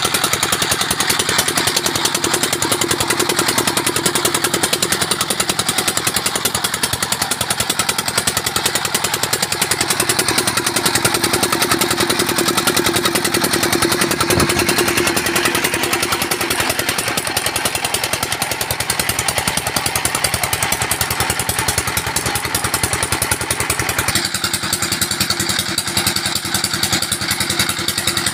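Single-cylinder diesel 'Peter engine' running steadily while it drives a tube-well water pump, with a fast, even chugging knock. Its tone shifts abruptly about 24 seconds in.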